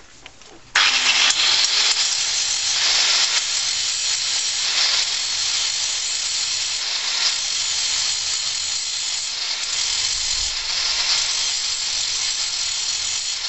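Angle grinder with a thick grinding disc starting up about a second in, then grinding down weld beads on a steel exhaust pipe: a loud, steady, harsh hiss that swells and eases as the disc is pressed against the metal.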